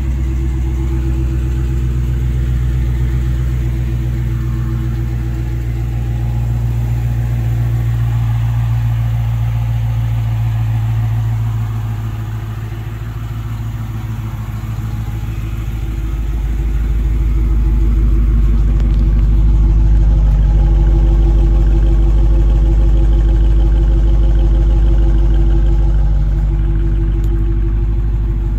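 2022 Dodge Challenger R/T's 5.7-litre HEMI V8 idling steadily through Dynomax Race Bullet mufflers with the resonators deleted and quad tips. The low exhaust note dips slightly a little before halfway, then grows louder nearer the rear tips.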